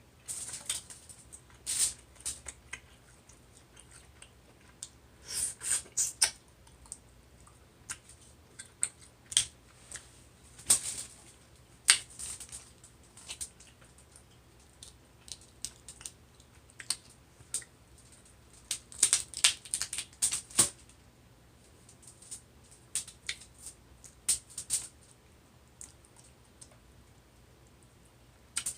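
Eating a seafood boil of snow crab, shrimp and mussels: irregular sharp cracks, clicks and crackles of shells being broken and the food being eaten, some in quick clusters.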